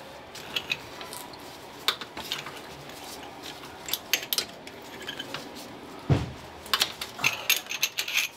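Irregular metallic clicks and clinks of hand tools, a socket wrench, working the starter bolts under the hood. There is a dull thump about six seconds in, followed by a quicker run of clicks near the end.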